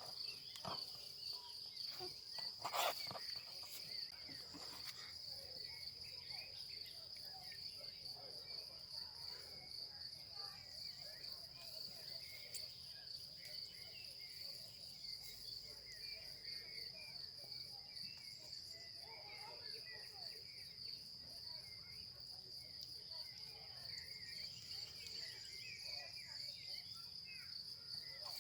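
Insects chirring in a steady high-pitched drone that does not let up, with a couple of sharp knocks in the first three seconds.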